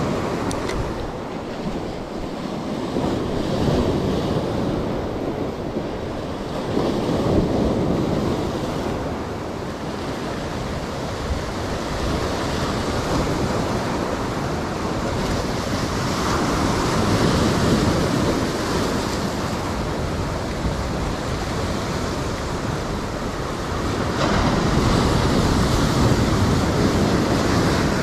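Surf breaking and washing over a rocky reef shore, coming in surges every few seconds, with louder swells about a quarter of the way in and again near the end. Wind buffets the microphone underneath.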